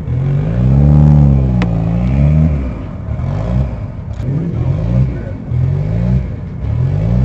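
A car engine being revved: one longer swell up and back down, then a run of quick throttle blips, about two a second, each rising in pitch and dropping off.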